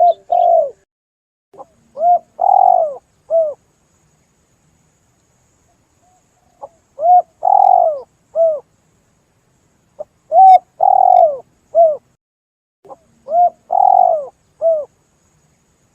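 Spotted dove (tekukur) cooing: a repeated three-to-four-note phrase with a longer, louder middle note, each note falling slightly in pitch. Five phrases come a few seconds apart.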